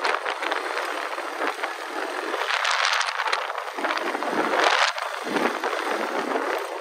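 An ATV riding over a loose gravel dirt track: rushing wind and crunching, scraping gravel, with no clear engine note, rising and easing in surges every second or two.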